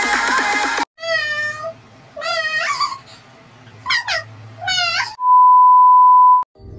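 Background music stops abruptly just under a second in, then a cat meows four times, each call bending in pitch. A loud, steady test-tone beep follows for about a second, sounding over TV colour bars, and cuts off suddenly.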